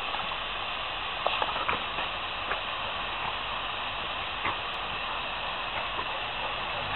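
Garden hose spray nozzle hissing steadily as it sprays a fine mist, with a few faint short clicks.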